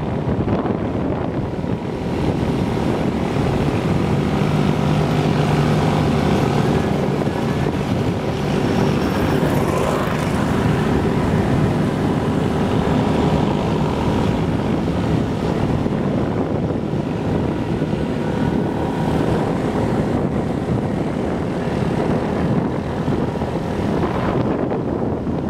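Motorbike engine running steadily as it is ridden along the road, with wind noise on the microphone.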